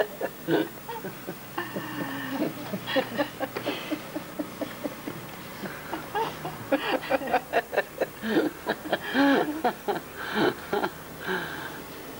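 Indistinct conversation, voices talking on and off with some laughter.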